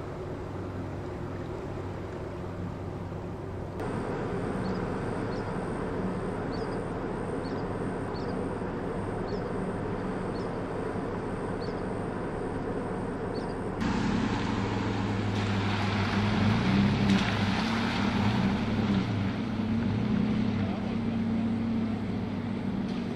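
Nissan Frontier pickup engines running as the trucks wade through a flooded trail, with water washing around them. In the last third the engine revs up and down several times.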